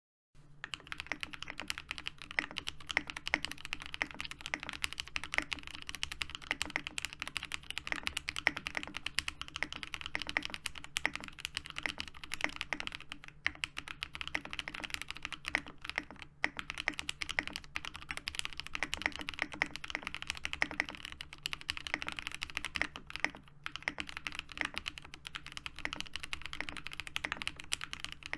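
Fast, continuous typing on a Geonworks Frog TKL mechanical keyboard with lubed and filmed Zepsody Bluebonnet switches, an aluminium leaf-spring plate and PBT keycaps: a dense stream of keystroke clacks broken by a few brief pauses. A steady low hum sits underneath.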